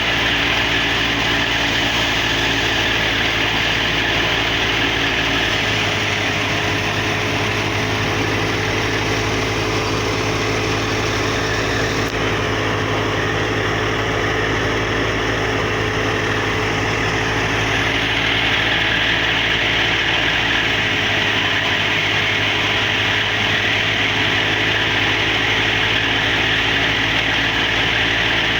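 Wheat thresher running steadily: a continuous mechanical drone with a rushing whir on top, which changes tone slightly a few times but never stops.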